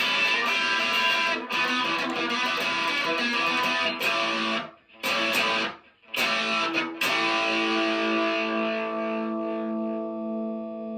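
Distorted electric guitar playing chords in a rock song, with two short breaks about five and six seconds in. It then hits a final chord that is left ringing out until near the end.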